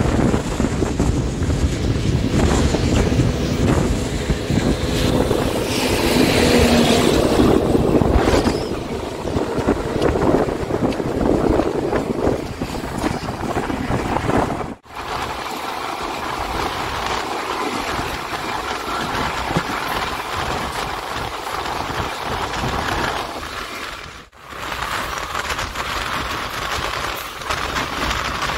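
Passenger train running, heard from on board with wind buffeting the microphone: a steady rumble of the moving coaches. The sound breaks off briefly twice, about halfway through and near the end.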